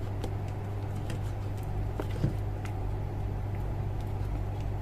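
Steady low hum with a few faint, sparse clicks and taps of small parts and wires being handled while a test load is connected to a pressure switch's terminals.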